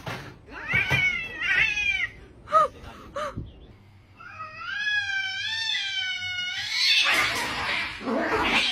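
Domestic cats yowling: a few short meow-yowls falling in pitch, then one long wavering caterwaul from two cats squared off, breaking into a noisy scuffle near the end as they fight.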